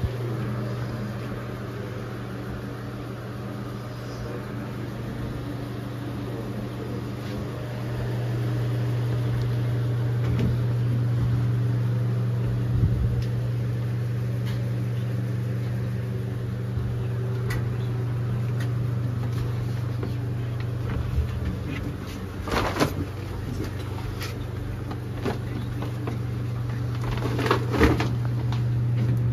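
Steady low mechanical hum of a ventilation fan inside a submarine compartment, growing louder about eight seconds in, with a few brief knocks and clatters near the end.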